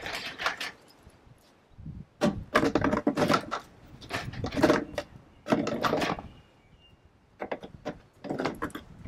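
Empty plastic water bottles being set one after another into a plastic planter container, bumping and clattering against each other and the container in several short bursts.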